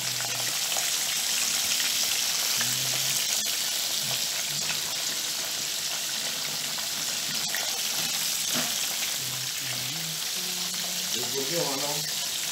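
Hot oil sizzling steadily as thin potato slices fry in a saucepan and floured fish pieces fry in a pan beside them.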